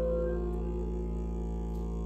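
A bowed string instrument's held note fading out about half a second in, leaving a steady, many-toned drone.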